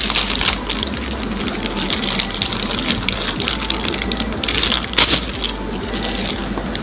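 Plastic courier mailer bag crinkling and rustling as hands pull it open and reach inside, a dense run of crackles with a sharper one about five seconds in.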